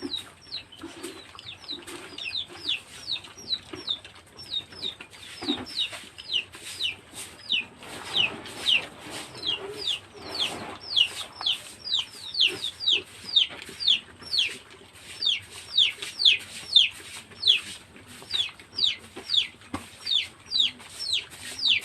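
Chicks peeping: a steady run of high, falling peeps, about two a second, that goes on without a break.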